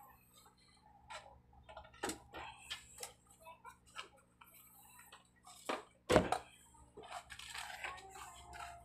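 Scattered light clicks and taps of soldering work at an amplifier's circuit board, with the loudest knock about six seconds in.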